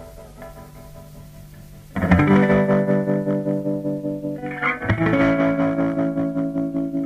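Music: a quiet, effects-laden guitar passage, then loud sustained electric guitar chords with distortion come in suddenly about two seconds in, changing chord about five seconds in.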